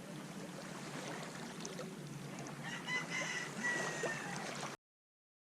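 Waves washing steadily on a beach, with a rooster crowing once, a long call about three seconds in. The sound cuts off suddenly near the end.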